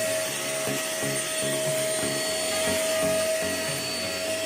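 Deerma DX700 handheld vacuum cleaner running steadily with a high motor whine while it is pushed under a sofa.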